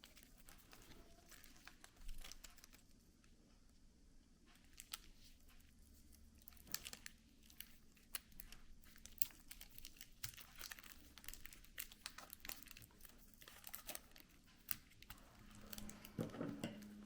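Faint, intermittent crinkling and rustling of plastic wrapping material being handled, cut and pulled around a LiPo battery pack, with scattered small clicks. The handling gets busier near the end.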